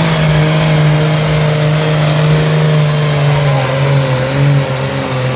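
Diesel engine of a Pro Stock pulling tractor running flat out while it drags the weight-transfer sled. The engine note is loud and steady, and it drops in pitch near the end as the pull slows under the load.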